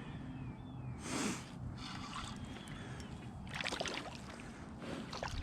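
Water sloshing and splashing around a kayak, with one brief louder splash about a second in and scattered small clicks later. Low wind rumble on the microphone underneath.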